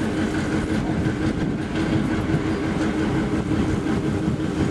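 EMD FP7 diesel locomotive passing under power, its two-stroke 16-cylinder EMD 567 engine running with a steady drone and a steady whine above it. Light clicks of the wheels on the rails sound through it.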